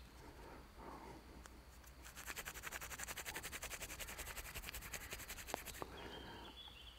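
Palms rubbing quickly back and forth, rolling a piece of tinder fungus (the trama layer of a tinder mushroom) between the hands to fluff up its fibres: a faint, fast, even run of rubbing strokes that starts about two seconds in and stops about a second before the end.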